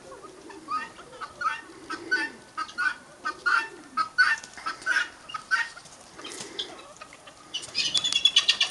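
Chicken clucking in a string of short, repeated calls, about two a second, with a louder rapid flurry near the end.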